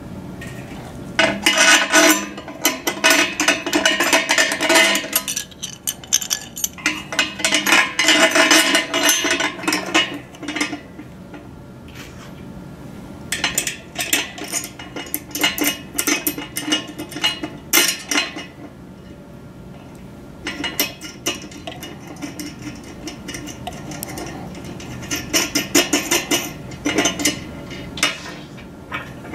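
Metal U-bolt, pole bracket, washer and nut clinking and rattling against a metal mounting bracket as they are fitted by hand, in four bursts of busy clatter with short pauses between.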